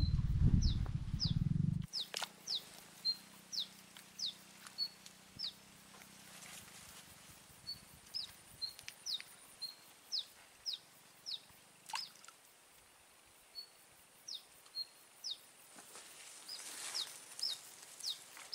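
A bird calling over and over with short, high, downward-sweeping chirps, about one or two a second, in a quiet open field. A loud low rumble covers the first two seconds, then drops away suddenly.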